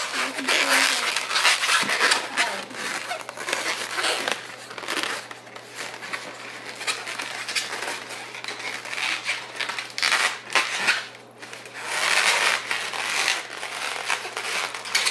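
Latex modelling balloons being twisted and handled, the rubber rubbing and crinkling against the hands in irregular spells.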